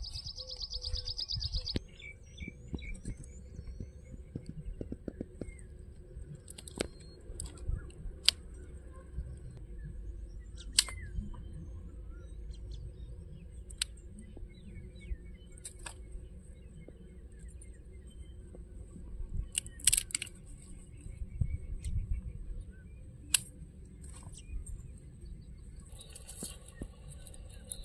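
Birds chirping in open country, with a fast trill in the first second or so and scattered chirps after. Dry sticks and branches crackle and snap sharply now and then as they are pulled off and gathered by hand.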